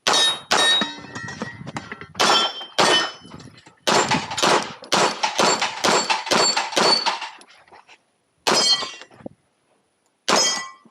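Service pistol fired in an irregular string of about fifteen shots, with a metallic ring after many of them, as from hits on steel targets. A quick run of about ten shots comes in the middle, then two single shots near the end.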